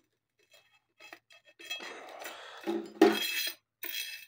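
Knotted wire wheel newly fitted to an angle grinder, checked for rubbing: a few short metallic scrapes and clinks, the loudest about three seconds in. It scrapes only lightly.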